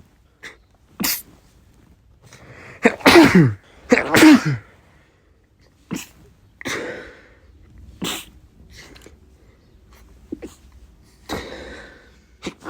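Men sneezing, one sneeze after another, about nine in all, each a short sharp burst. The two loudest come about three and four seconds in, each with a drawn-out voiced "choo" that falls in pitch.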